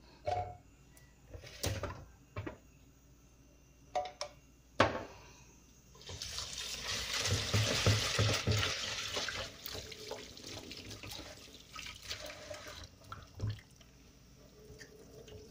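Tap water running into a plastic bucket of rice in a stainless steel sink while the rice is stirred and rinsed by hand. A few knocks and clinks of things being handled in the sink come first. The water runs steadily for about seven seconds from about six seconds in, then eases off.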